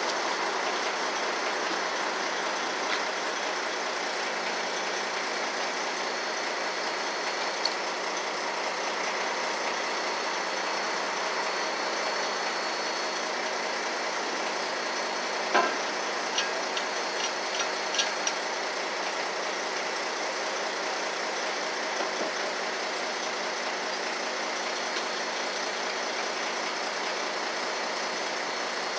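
Heavy truck diesel engine idling steadily, with a few short light clicks and knocks about halfway through.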